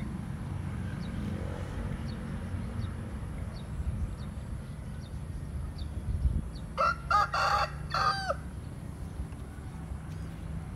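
A rooster crowing once, about seven seconds in, a call of about a second and a half ending on a held, falling note. Faint short high chirps and a steady low rumble run underneath.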